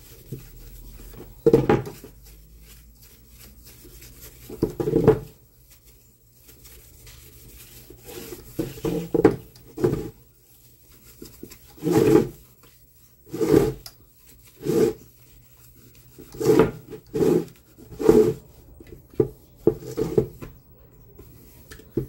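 Cloth and thinner scrubbing grime off a fan's base. The rubbing comes in short strokes, a few seconds apart at first, then about one a second from midway on.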